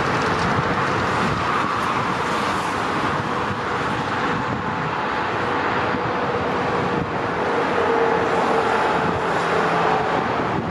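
Boeing 777-300 jet engines at taxi power, heard from a distance as a steady rumbling roar with a faint held whine, with wind on the microphone.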